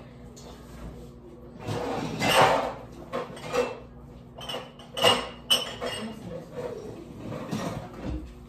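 Dishes and glassware clinking and clattering in an open dishwasher rack as it is pulled out and unloaded: a run of knocks and clinks, the loudest about two and five seconds in, one with a short glassy ring.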